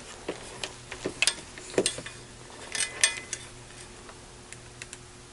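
Test leads and probes being handled and brought against the terminals of a current source, a scatter of small clicks and knocks, busiest in the first three seconds, with a few faint ticks near the end.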